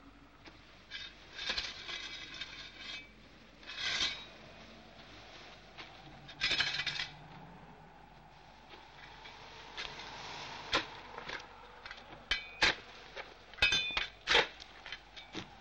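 A small metal spade digging into dry, gritty ground: three scraping strokes as the blade bites into the soil, then from about two-thirds through a run of sharp metallic clinks and ticks.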